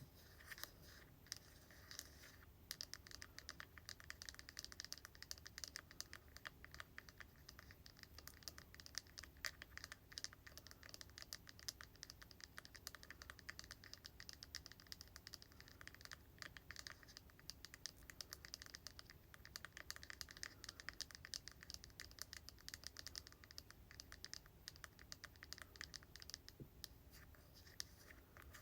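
Soft tapping and scratching on hair product containers: a dense, continuous run of light clicks.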